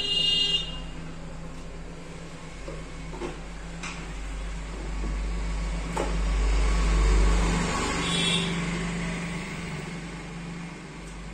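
Steady low background hum with a deeper rumble that swells and fades in the middle, a brief high beep right at the start, and a few light clicks as the TV's backlight wires and board are handled.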